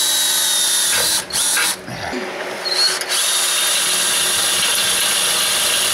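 Power drill boring a pilot hole up into a metal vehicle frame, running at a steady high whine. It eases off briefly about a second in and again for about a second near the two-second mark, then runs on steadily.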